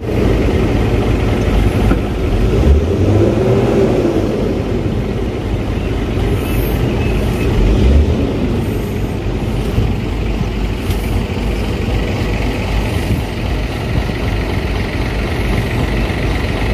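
Heavy diesel truck engine running, a steady low rumble.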